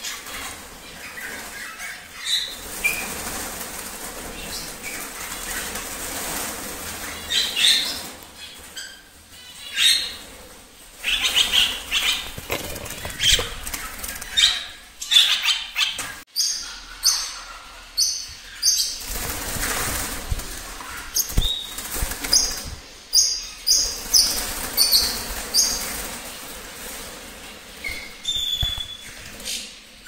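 Birds fluttering and flapping their wings in repeated irregular bursts, with short high-pitched calls through the second half.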